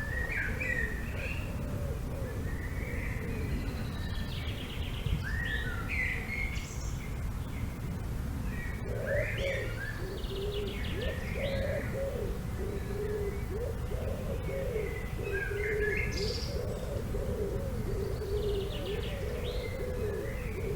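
Several songbirds chirping and trilling in woodland. About nine seconds in, a lower, continuous warbling call joins them. All of it sits over a steady low rumble of wind.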